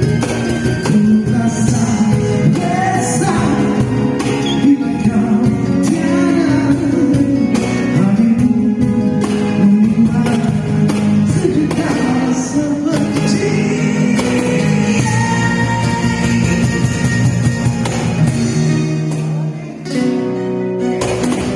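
A band playing a song live on acoustic instruments, with a voice singing over guitar. The music drops briefly near the end before carrying on.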